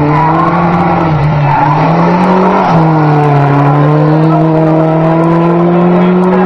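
Renault Clio race car's engine under hard acceleration uphill. There is a gear change about two and a half seconds in, then the revs climb steadily.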